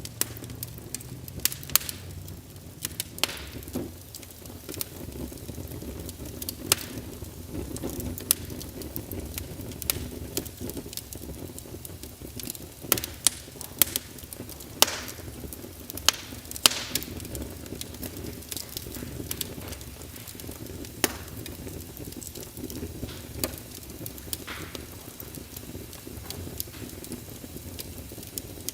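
A fire in a fireplace crackling, with irregular sharp pops and snaps over a steady low rumble. The pops come thickest around the middle and thin out over the last several seconds.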